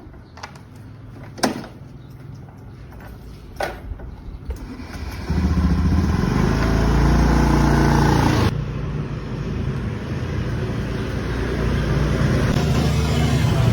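A motor vehicle engine running, coming in loud about five seconds in and dropping abruptly about three seconds later, then carrying on more quietly; a few light clicks before it.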